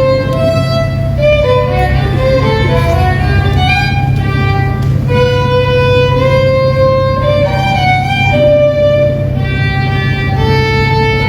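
Violin playing a melody of held notes over a steady low accompaniment.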